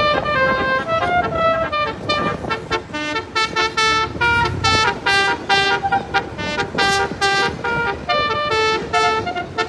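Basuri multi-tone telolet horn playing a fast melody of short tooting notes that step up and down in pitch, sometimes several notes sounding together.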